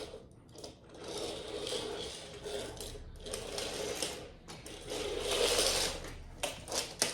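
Small plastic toy train cars and pieces being handled: a continuous mechanical rattling, with a few sharp clicks near the end.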